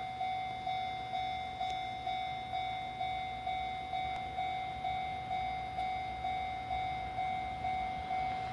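Japanese railway level-crossing warning bell ringing steadily, a sharp electronic ding about twice a second, signalling that a train is approaching.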